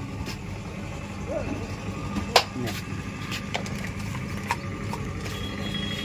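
A steady low engine hum at idle, with scattered sharp clinks and knocks of dishes and utensils at a roadside snack stall, and faint voices.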